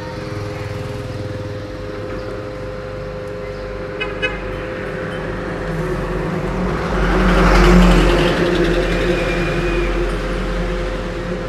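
Road traffic over a steady hum: a motor vehicle passes close by, swelling to its loudest about seven to eight seconds in and then fading, with a short horn toot.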